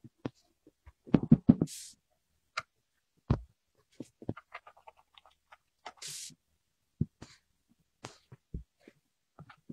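Hands pressing and crumbling moldable play sand into a plastic foot-shaped mold: irregular soft crunches, taps and thumps, with a quick cluster of heavier thumps about a second in and a few brief hissing rustles.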